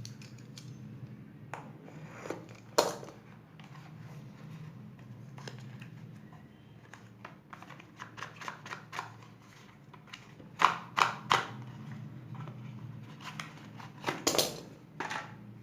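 Hands opening a small cardboard retail box and its packaging: scattered clicks, scrapes and rustles, with louder sharp snaps about ten seconds in and again near the end. A steady low hum runs underneath.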